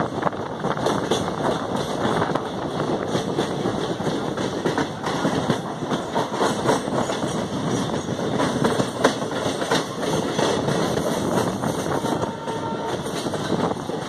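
Amaravati Express passenger train running, heard from beside the coaches: a steady rumble of wheels on the rails with rattling clatter over the track.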